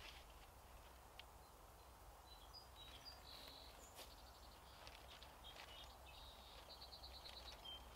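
Near silence with faint bird chirps: a short call about three seconds in and a quick run of repeated short notes near the end.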